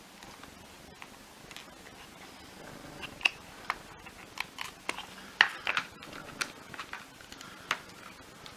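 Sharp plastic clicks and knocks from the housing and parts of a Miele Triflex HX1 vacuum floor head being handled and pried apart by hand. The clicks come irregularly, starting about three seconds in, with the loudest a little past halfway.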